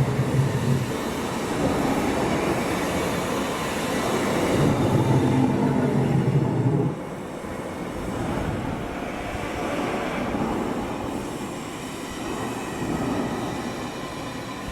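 Animatronic dinosaur running through its test movements: electric drive motors and gearing give a steady low mechanical hum and rumble. It is loudest during a stretch in the first half, then drops to a quieter rumble about seven seconds in.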